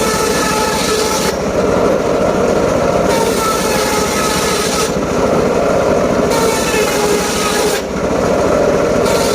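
Mobile circular sawmill running while its blade cuts teak wood. A steady low drone throughout, with a high hiss from the cut coming and going about every one and a half seconds.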